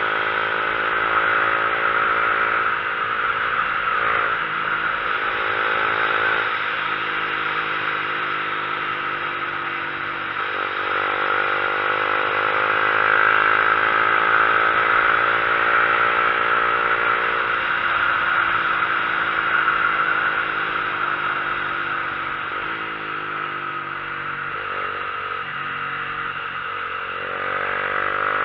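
Vehicle engine pulling uphill, its pitch climbing under throttle and dropping sharply at gear changes several times, with a steady rushing noise over it.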